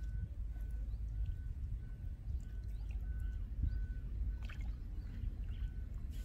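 Low, steady rumble of wind buffeting the microphone, with a faint high note repeating evenly about three times a second from a small calling creature, bird or insect.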